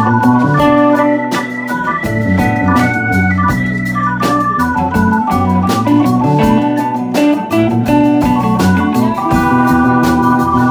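Live blues band playing an instrumental break: a melody of held notes stepping up and down over bass and drums.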